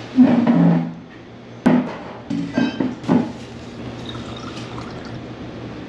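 Tableware sounds at a meal: glass and dishes clinking, with a sharp clink a little over a second in, a quick run of clinks around the third second, and liquid pouring.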